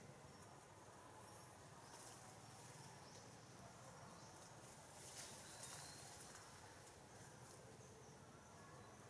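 Near silence: faint forest ambience with a steady, high-pitched insect chirring in the background.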